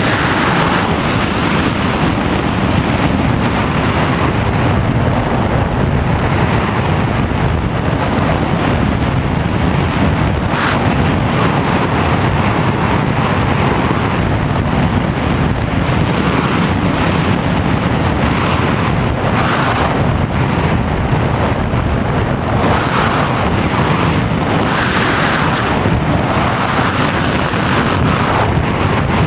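Steady rush of airflow over the onboard camera's microphone on a Sky Surfer radio-controlled glider gliding with its motor off, with a few brief louder gusts.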